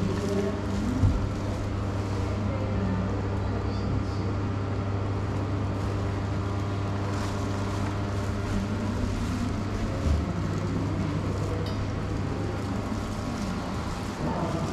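A steady low hum with several constant tones over it, like a machine or ventilation running, with faint distant voices and a soft thump about a second in and another about ten seconds in.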